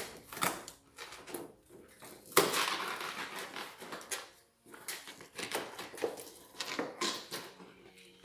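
Cardboard and plastic toy packaging being handled as someone struggles to get the box open: a series of knocks and rustles, with a longer crinkling stretch about two seconds in.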